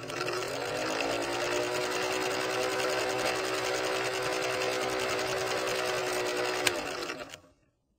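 Film projector running: a rapid mechanical clatter over a steady hum. There is a single sharp click near the end, and then it dies away.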